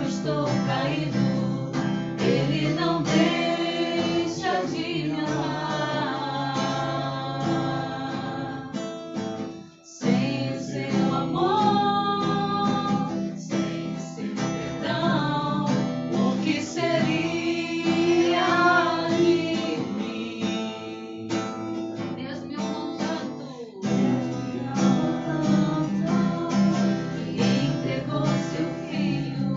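A worship song: a voice singing over strummed acoustic guitar. The music drops out briefly about ten seconds in, then carries on.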